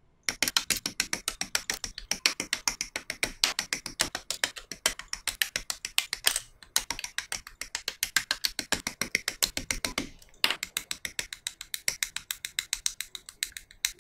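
A rapid, even run of sharp clicks, about six a second, with a few brief pauses.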